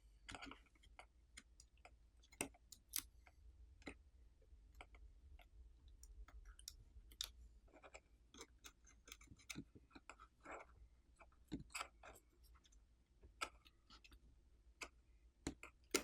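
Faint, irregular clicks and taps of small repair tools on the opened tablet's internal parts, over a low steady hum.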